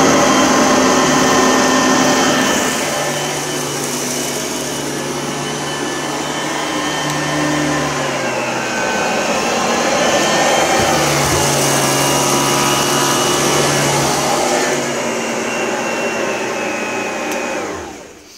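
Oreck upright vacuum cleaner running steadily with its brush roll agitating, pushed over carpet and onto a hard floor to pick up scattered debris. Near the end the motor is switched off and winds down.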